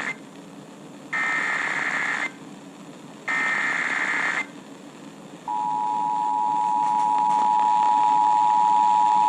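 Emergency Alert System signal over a radio broadcast: two short bursts of SAME header data, each about a second long and a second apart, ending the three-burst header, then about five and a half seconds in the steady two-tone EAS attention signal begins and holds. It announces an incoming alert, here a severe thunderstorm warning.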